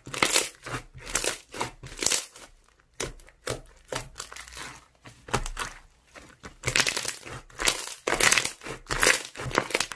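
Slime being pressed, squeezed and stretched by hand, giving a dense run of irregular short crackles and clicks.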